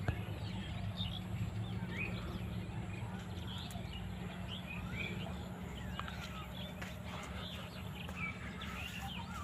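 Small birds chirping and calling in short, scattered notes, over a steady low rumble.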